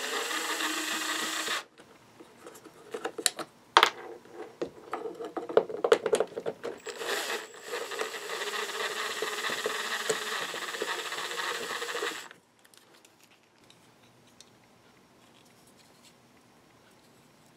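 A cordless drill/driver spins a socket bit on small screws in a plastic car door panel. It makes a short run at the start, then clicks and knocks of the bit and screws being handled, then a longer run of several seconds that stops about twelve seconds in.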